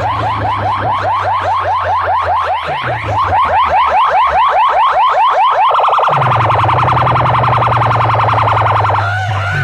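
Electronic siren effect played loudly through a big DJ sound-box system in a sound competition. Fast rising whoops come about five a second, then at about six seconds they change to a rapid high warble, with a steady low hum underneath.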